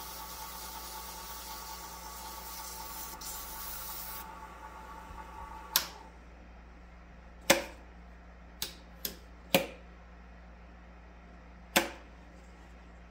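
Sandpaper hissing against a pen blank spinning on a wood lathe, over the lathe motor's steady hum. The sanding stops about four seconds in. The motor hum cuts off with a sharp click shortly after, and a few more sharp clicks follow.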